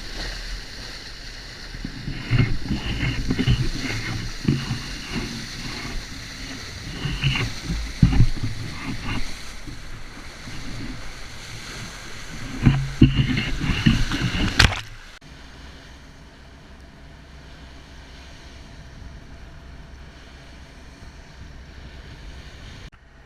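Sounds aboard a fishing boat: water sloshing against the hull with irregular knocks and thumps. After about fifteen seconds this gives way abruptly to a steadier, quieter rush of noise.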